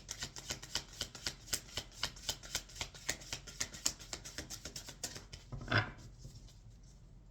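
Tarot deck being shuffled by hand: a quick run of soft card clicks, about six a second, with one louder swish near the end as the shuffling stops.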